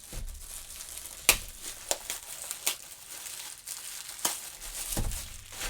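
Crinkling and rustling of a silver packaging pouch being handled and opened to take out a wallet, with several sharp crackles.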